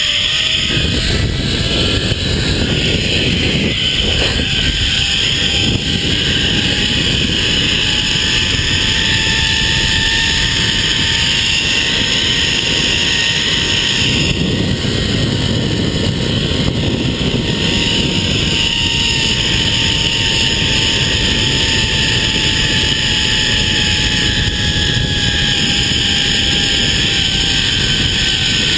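Zipline trolley pulleys running along the steel cable at speed, a whine whose pitch climbs slowly through the first half of the ride and sinks gently toward the end, over heavy wind rush on the microphone.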